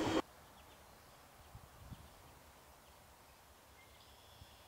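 A passing freight train's noise cuts off suddenly just after the start, leaving quiet outdoor ambience with a few faint bird chirps.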